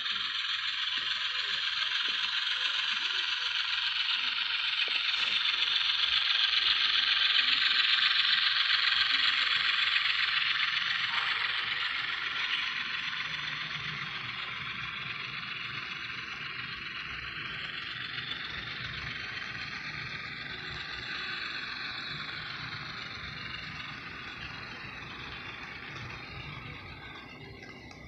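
Model train running past: the locomotive's motor and gearing whir while the wheels click rapidly over the track joints. It is loudest about eight seconds in, and the rolling of the coal and grain cars then fades steadily as the train moves away.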